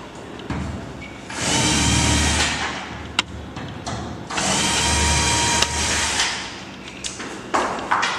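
Electric drill running in two bursts of a second or two each, with a sharp click between them.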